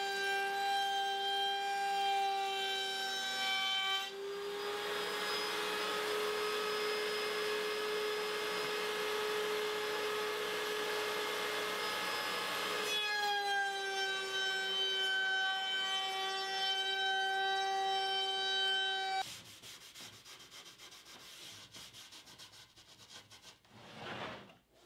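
Router motor in a router table running with a steady high whine; from about four seconds in its pitch sags a little and the rough rushing of the bit cutting along the edge of a maple board joins it for about nine seconds, routing a chamfer, then the motor runs free again. It stops abruptly about nineteen seconds in, followed by faint rubbing and knocks of the board being handled on the table.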